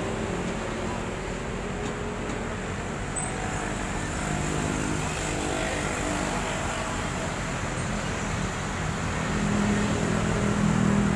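Large diesel bus engine idling with a steady low hum, getting a little louder near the end.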